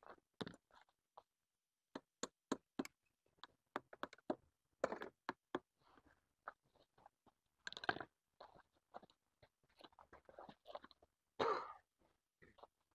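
Plastic liner-lock strip being pressed into a pool's coping track over the vinyl liner: scattered sharp clicks and short crunching scrapes. Longer scrapes come about five, eight and eleven and a half seconds in.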